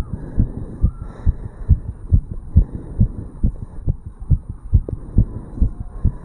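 Human heartbeat heard through the chest over the tricuspid valve area: a quick, regular rhythm of low thumps, about two a second, raised after jogging uphill.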